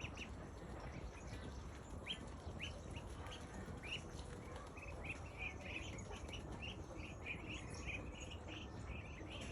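Birds chirping: a run of short, high notes that start sparse and grow to several a second from about two seconds in, over a steady low background rumble.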